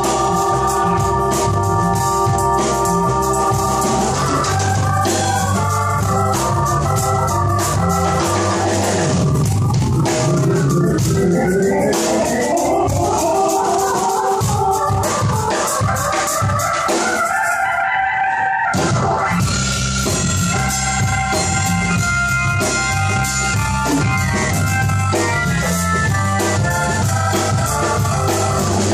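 Electronic organ played live on a stage keyboard in an instrumental break, with a steady beat underneath. Held chords give way to a long rising sweep in pitch that breaks off briefly after about 18 seconds, then the chords resume.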